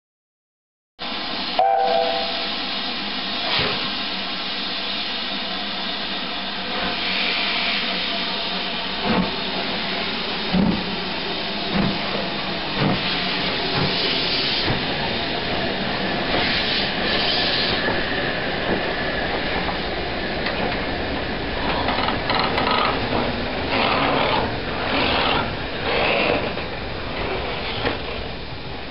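Steam locomotive hissing steadily with escaping steam, with separate exhaust chuffs a little over a second apart midway, then a quicker run of chuffs near the end as it works.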